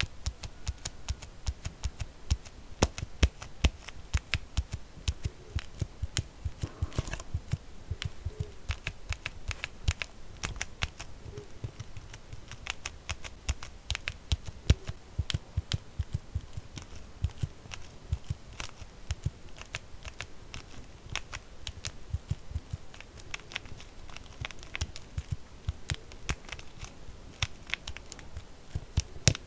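Quick, irregular tapping on an empty plastic kvass bottle, several taps a second.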